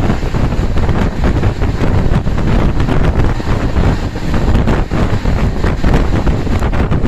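Wind buffeting the microphone at the window of a moving passenger train, over the train's steady low rumble as it runs at speed.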